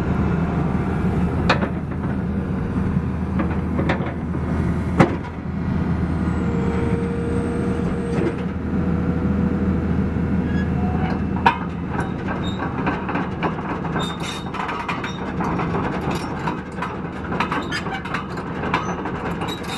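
Caterpillar 321C excavator's diesel engine running steadily, with a few sharp metallic clanks and, through the second half, a rapid clatter of small knocks.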